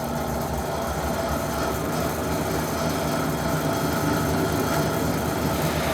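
Doall 2013V vertical bandsaw running in its low speed range with no cut being made: the 2 hp three-phase blade drive motor and dual-range transmission give a steady mechanical hum.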